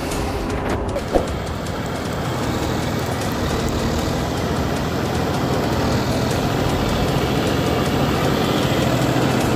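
John Deere 5305 tractor's three-cylinder diesel engine running under load while it drives a rotavator through wet, puddled mud, with the tiller churning the soil. There is a single sharp knock about a second in, and the sound grows gradually louder toward the end.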